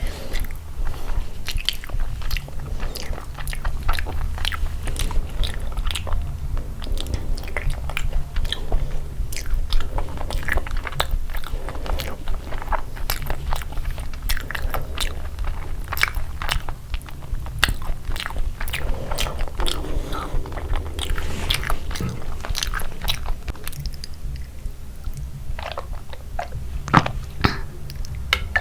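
Close-up chewing and mouth sounds of a person eating curry and rice, with many small sharp clicks and occasional crunches, over a steady low hum.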